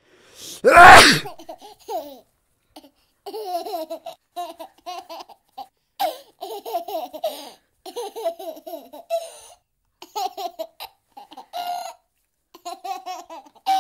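A person laughing in many short, choppy bursts, after a loud, sudden noise about a second in.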